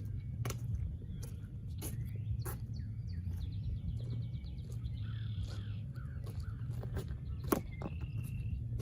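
Birds calling outdoors, with a run of quick chirping calls in the middle of the stretch. Scattered sharp knocks and clicks sound over a steady low rumble.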